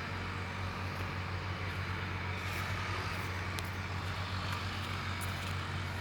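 Heavy machinery engine running steadily with a low, even hum and a few faint clicks.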